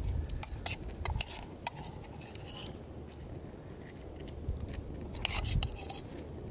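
Metal spoon clinking and scraping against a stainless steel camp mug while scooping out filling: a few scattered clicks in the first couple of seconds and a quick cluster of clinks near the end.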